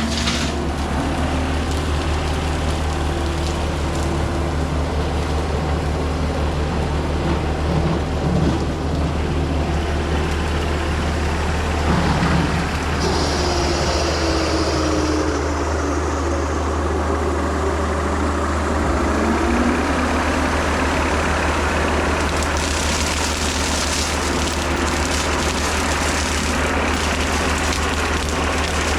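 John Deere 326E skid steer's diesel engine running steadily with its hydraulic brush cutter working, a deep steady drone underneath. A higher tone falls about halfway through and climbs back again.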